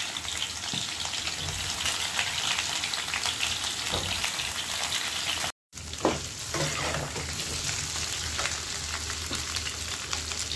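Pointed gourd (parwal) and potato pieces sizzling and crackling in hot oil in a frying pan, stirred with a metal spatula. The sound cuts out for a moment about halfway through, then the frying resumes with a few spatula scrapes.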